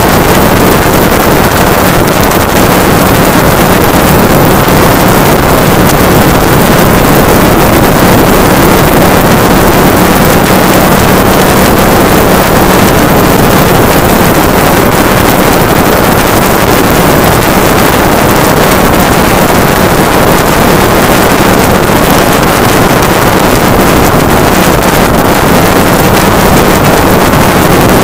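Light aircraft in flight: steady engine and propeller drone under loud, constant wind rush on the microphone.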